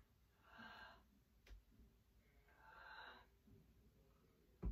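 Two faint breaths from a person exercising, one about half a second in and a longer one at two and a half to three seconds, with a short thump at the very end.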